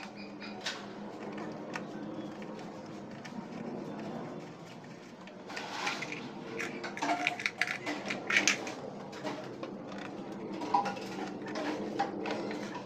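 Metal hand tools and bolts clinking and clattering while the scooter's CVT cover bolts are fitted, the clinks coming thicker from about halfway through, over a steady low hum.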